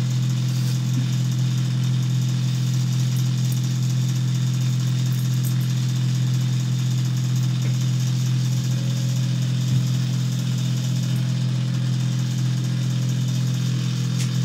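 A steady low machine hum with a light even hiss behind it, unchanging in pitch and level.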